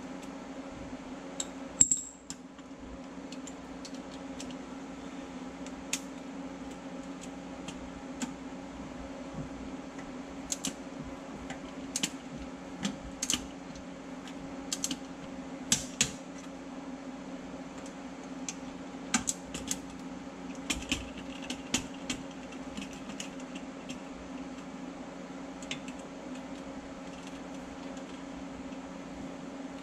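Hand ratchet clicking and metal tools clinking on the bolts of a steel front differential skid plate, in scattered short clicks with a sharp metal clink about two seconds in, over a steady low hum.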